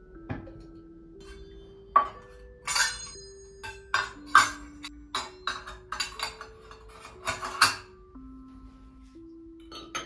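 Dishes and cutlery clinking and clattering, a quick run of sharp ringing knocks for several seconds, then one more clink near the end, over soft melodic background music.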